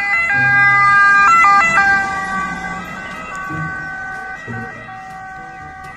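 Ambulance siren sounding from a passing ambulance van: a loud, steady stack of tones with a few abrupt jumps in pitch in the first two seconds, then growing quieter as the ambulance drives away.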